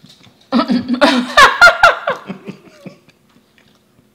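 A person laughing out loud in a burst of quick pulses. It starts about half a second in, is loudest a little after a second, and dies away by about three seconds.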